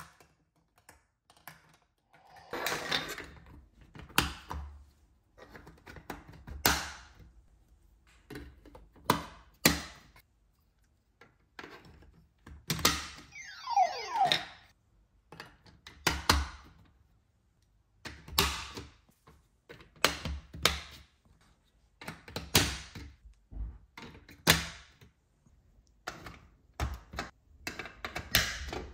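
Hard plastic marble-run pieces being handled and set into place: a string of separate clacks and knocks, with a longer rattle about three seconds in. About halfway through, the toy's lit-up electronic motor unit gives a short falling electronic sound effect.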